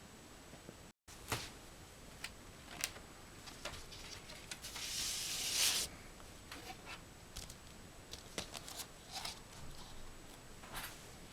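Vinyl record packaging being handled: scattered light taps and clicks of card and paper, with a longer paper swish about five seconds in.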